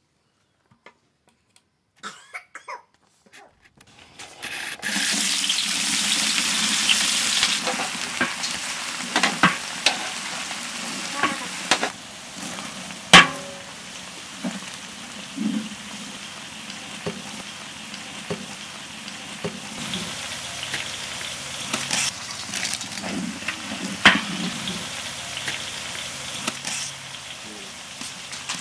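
Sliced onions frying in hot oil in a large aluminium pot: a loud sizzle starts suddenly about four seconds in and settles into a steady frying hiss. A wooden spatula stirs and knocks against the pot now and then, the loudest knock about halfway through.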